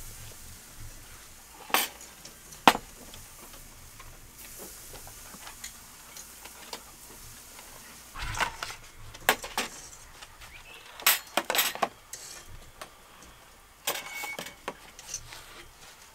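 Tableware being set down on a glass-topped table: scattered clinks and knocks of ceramic bowls, plates and a lidded pot. The sharpest knock comes about three seconds in, with clusters of clinks later on.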